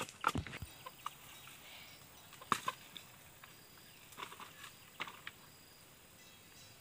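Scattered sharp woody knocks and cracks of bamboo canes being handled and knocked together, coming in small irregular clusters.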